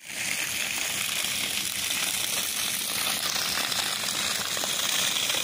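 Steady hiss of water: rain falling onto a flooded lawn, with a sump pump's discharge pipe pouring a stream onto the sidewalk.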